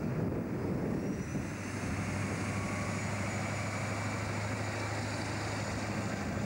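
Diesel engine of a logging truck approaching and coming past, a steady drone.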